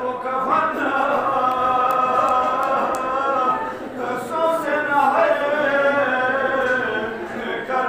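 A man chanting a Balti marsiya, a mourning elegy for Imam Hasan, in long held melodic lines that rise and fall slowly, with a short break about four seconds in.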